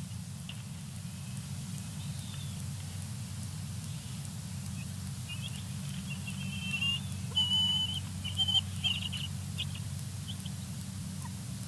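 Bald eagles calling: a run of short, high, thin whistled calls lasting a few seconds about halfway through, over a steady low hum.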